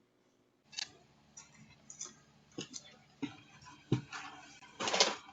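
After a brief silence, a series of sharp clicks and knocks, some with a low thud, coming irregularly about every half second to a second; the loudest is about five seconds in.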